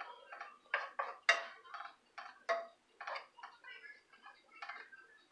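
Wooden spatula scraping and knocking against a nonstick frying pan as it pushes lumps of butter around, in short, uneven strokes about two a second.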